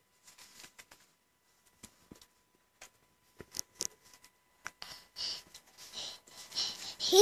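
A toddler's soft rustling and small clicks as he shifts on a fleece blanket, then a run of breathy huffs of quiet laughter about every half second in the last two seconds. His voice breaks in loudly at the very end.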